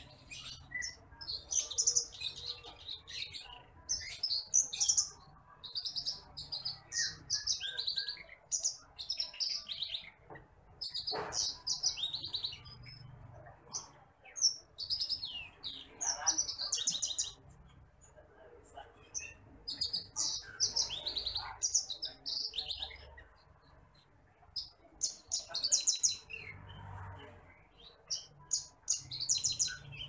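Branjangan apung (titimplik), a small rice-field pipit, singing in its cage: bursts of rapid, high chirping trills, strung into phrases of a second or two with short pauses between.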